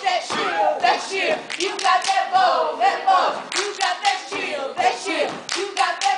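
Step team performing: a group of steppers clapping and stomping in rhythm, with sharp strikes several times a second, and voices chanting and shouting over the beat.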